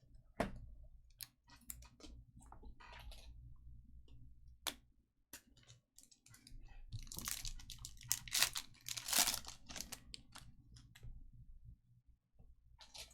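Trading cards and plastic top loaders being handled on a table: scattered clicks and taps, with a few seconds of denser rustling and sliding about seven seconds in.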